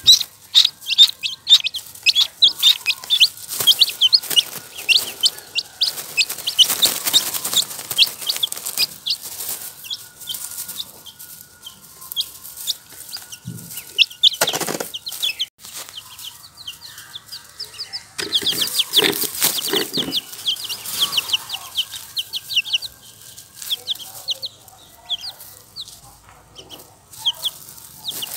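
Four-day-old chicks and ducklings peeping: many short, high calls in quick succession, busiest near the start, around six to eight seconds in and again around eighteen to twenty-one seconds in.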